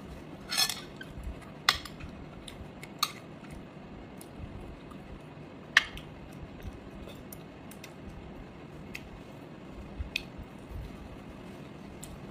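Tableware being handled during a meal: a handful of light, scattered clicks and clinks of chopsticks and spoons against plates, the sharpest about halfway through.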